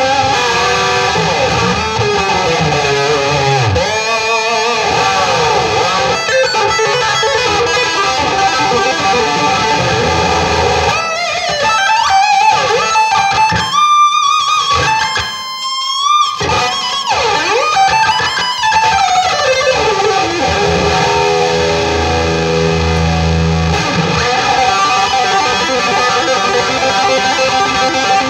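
Distorted electric guitar lead played through a Davis Amplification 2C8 amp boosted by a Tube Screamer pedal: fast lead lines with pitch glides around the middle, and heavier low notes about three quarters of the way through.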